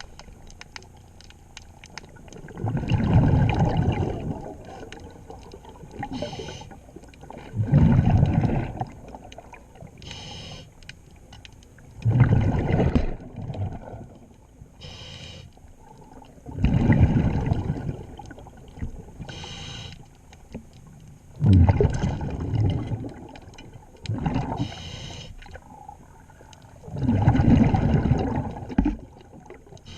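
Scuba diver breathing through a regulator underwater: a loud bubbling rush of exhaled air about every four and a half seconds, with a short hiss of inhalation between each one.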